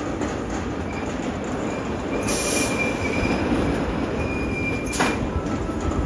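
Mine Blower wooden roller coaster train running along the track during a test run: a continuous rumble with a high wheel squeal on and off. A brief hiss comes about two and a half seconds in, and a single sharp clack about five seconds in.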